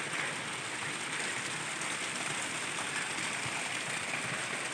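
Steady rush of falling water from a small waterfall, an even hiss with no breaks.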